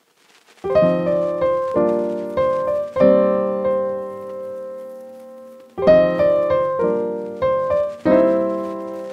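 Background music: a solo piano playing chords that ring and fade, with one long held chord in the middle.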